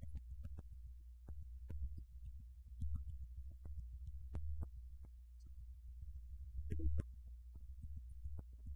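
A steady low rumble with scattered, irregular crackles and clicks: the surface noise of an old recording, with no music or voice on it.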